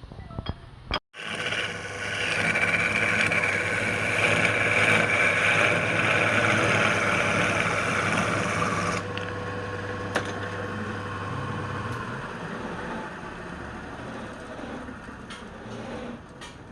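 A motor-driven machine running steadily after an abrupt start about a second in, with a steady whine over a low hum; it drops in level about nine seconds in and the hum stops around twelve seconds.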